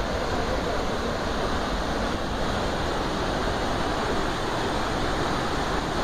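Waterfall and river rapids rushing in a steady, loud roar of falling water.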